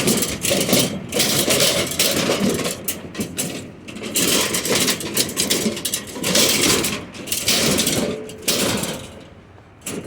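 Scrap metal scraping and clattering as pieces are slid and shoved into a load of scrap, in repeated rough bursts that die down near the end.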